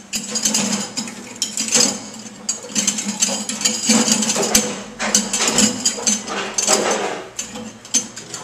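Irregular metallic clicking and clattering from a stainless steel food-waste solids separator being handled and fitted into place under a commercial sink.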